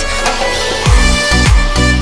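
Electronic dance music: a steady synth chord with a deep, pitch-dropping bass-drum beat that comes in about a second in.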